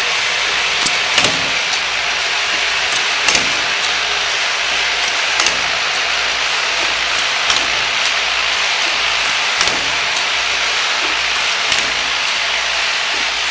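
A child-resistant cap assembly and lining machine running, with a steady whirring hiss and scattered sharp clicks every second or two as the caps are handled.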